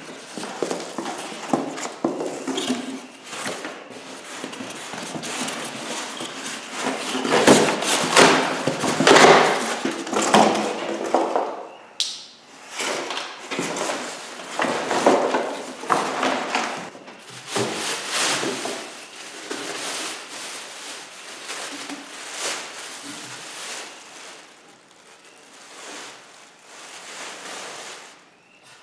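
Cardboard box flaps being pulled open and a plastic-wrapped small engine being unpacked: crinkling plastic wrap and scraping cardboard in irregular bursts, with the odd thump of handling.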